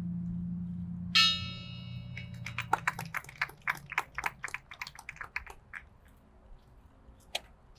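A bell struck once about a second in, ringing with bright high overtones as it dies away, a tribute struck for the firefighter's name just read. It is followed by a run of quick, irregular clicks lasting a few seconds.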